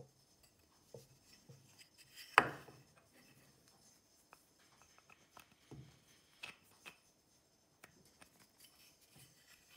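Brass carriage bolts handled and pushed into a plywood holding block: scattered small clicks and taps of metal on wood, with one sharp knock about two and a half seconds in.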